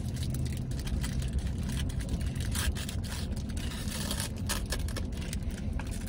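Paper wrapper around a vegan Caesar wrap crinkling and rustling in the hands, with chewing, in many short crackles over a steady low rumble in a truck cab.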